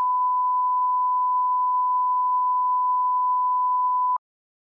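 Steady 1 kHz test-card reference tone, the beep that goes with colour bars, held on one pitch and cutting off suddenly about four seconds in.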